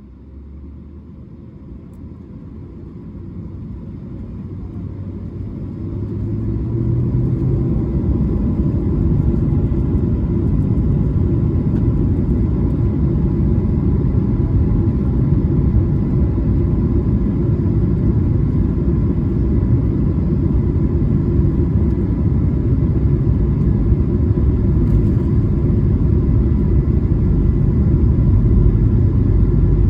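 Airbus A220-300's Pratt & Whitney PW1500G geared turbofan engines spooling up to takeoff thrust, heard from inside the cabin. The sound swells over the first several seconds into a loud, steady rumble with a faint high whine, as on the takeoff roll.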